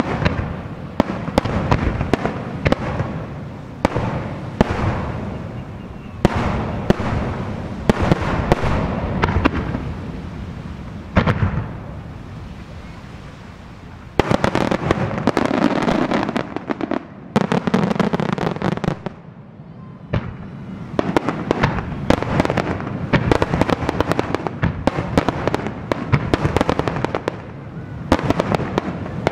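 Aerial fireworks shells bursting in quick succession, a dense barrage of bangs and crackling, with a short lull about twelve seconds in before it picks up again.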